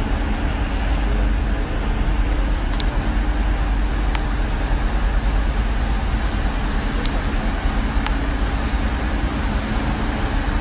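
Boat engine running steadily with a low rumble, under a hiss of wind and water, with a few faint clicks.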